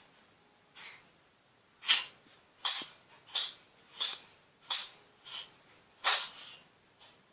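A cat sneezing in a rapid fit: about seven sharp sneezes roughly two-thirds of a second apart, the first and last the loudest, with a fainter sneeze before and after them.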